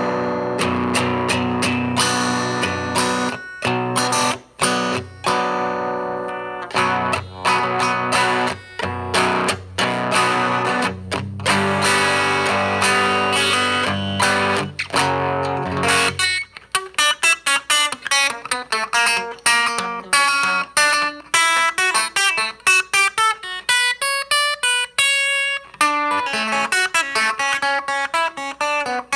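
Single-coil electric guitar played through the home-built McGrath Mini amplifier's M channel, with a thin, scooped tone and the gain turned up. Ringing chords for about the first half, then quick single-note lines that climb higher.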